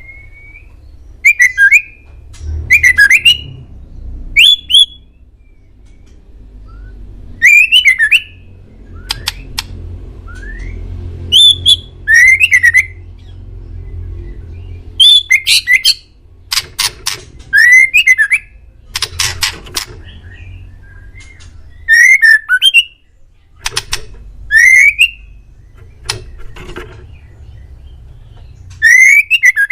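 Male white-rumped shama (murai batu) singing: short, loud phrases of sharp notes and gliding whistles, repeated every second or two.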